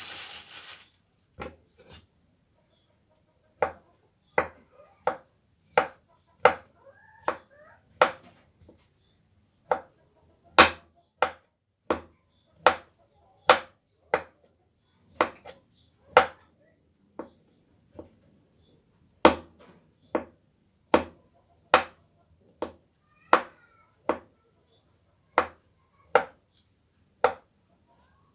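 Kitchen knife chopping on a cutting board in slow single strokes, a little more than one a second, after a short rustle at the start.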